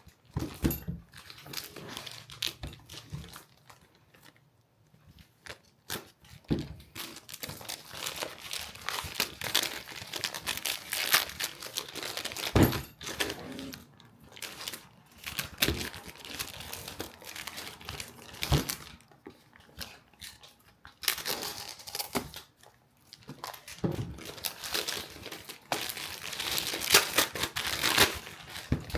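Hands handling camera rig gear close to the microphone: irregular crinkling and rustling with scattered sharp clicks and knocks.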